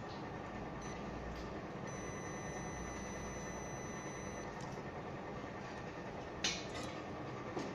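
Steady workbench background noise with a faint high-pitched whine for about two and a half seconds in the middle, and a single sharp click about six and a half seconds in, followed by a smaller one near the end.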